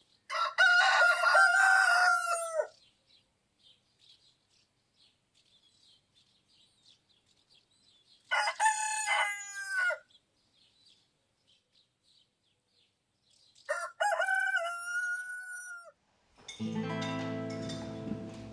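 A rooster crowing three times, each crow about two seconds long, with faint small-bird chirping between the crows. Music comes in near the end.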